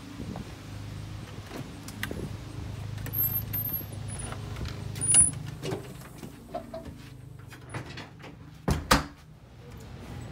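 Scattered clicks and handling noise over a steady low hum, with a door banging about nine seconds in.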